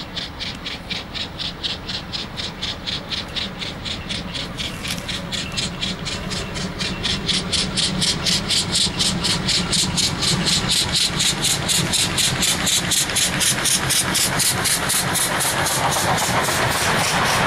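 Steam locomotive hauling a passenger train, working hard: a steady beat of exhaust chuffs, about four a second, growing louder as it approaches. Near the end the rumble of the coaches' wheels on the rails builds under the chuffs.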